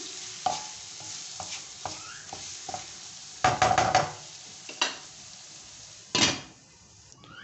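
Wooden spatula stirring and scraping tomatoes and spices sizzling in oil in a nonstick wok, with a louder run of scraping about three and a half seconds in. Near the end a lid is set on the wok with a single knock, and the sizzle becomes much quieter.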